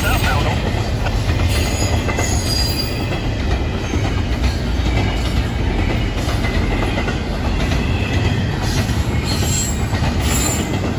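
Double-stack intermodal freight cars of a Florida East Coast Railway train rolling past close by: a loud, steady rumble of steel wheels on rail. Brief high wheel squeals come about two seconds in and again near the end.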